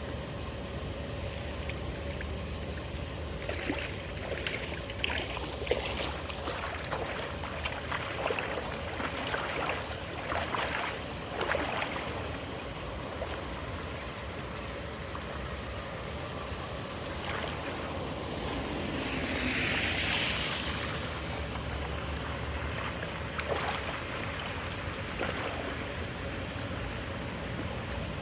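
Water running and splashing, with a string of short splashes and knocks in the first half and a brief louder rush about twenty seconds in.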